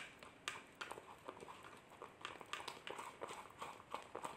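A spoon scraping and tapping against a plastic bowl while stirring a sticky paste of honey and turmeric starch: soft, irregular clicks a few times a second.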